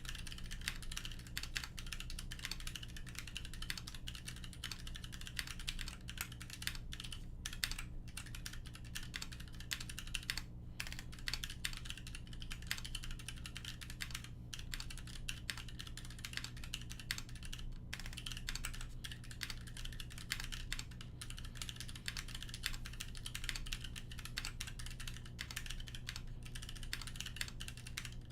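Continuous typing on a custom mechanical keyboard with Kailh Box Royal tactile switches in a polycarbonate plate, capped with GMK keycaps: a dense, unbroken patter of keystrokes.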